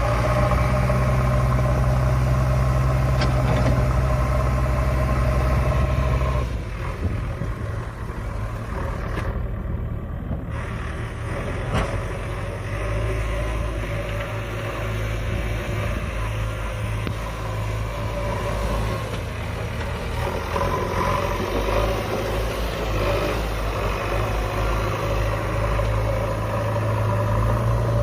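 Diesel engines of a backhoe loader and tractors running steadily. The loudest, deep engine hum drops away about six seconds in, and the engines keep running more quietly.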